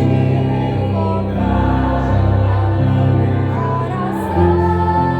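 A choir singing a slow song in Portuguese, holding long notes that change pitch every second or so.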